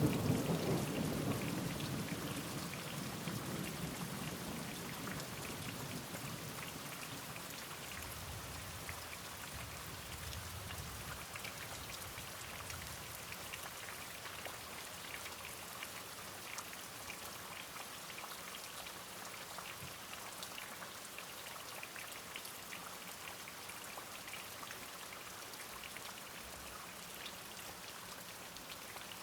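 Steady rain with many distinct drops, a low rumble of thunder dying away over the first few seconds.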